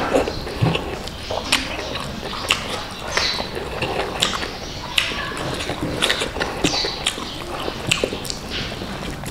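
Close-miked chewing and lip smacking of a man eating biryani rice by hand, with irregular wet mouth clicks a few times a second and fingers working the rice.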